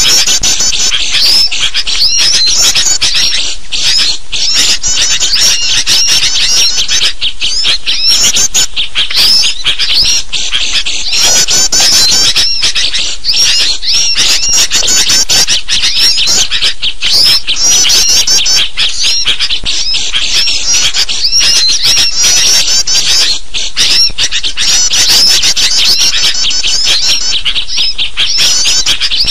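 Dense, loud chorus of excited bird chatter: agitated sooty-headed bulbul (kutilang) calls mixed with the rapid chirps of small songbirds, overlapping without a break. It is a bird-lure recording meant to draw wild birds in.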